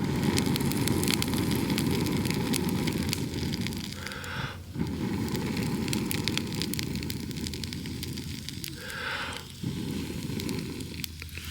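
Wood fire burning in a small fire pit, a steady rushing with many sharp crackles and pops, briefly dropping out twice.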